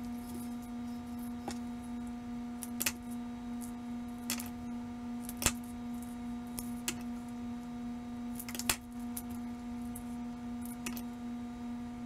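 Light clicks and taps of an LED light strip and a cardboard shoebox lid being handled on a counter, about eight scattered through, over a steady low hum.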